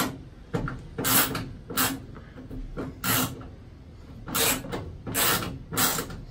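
Screwdriver turning a machine screw into a lock nut that is held by a socket and ratchet: a short rasping scrape with each twist, about eight twists at uneven spacing.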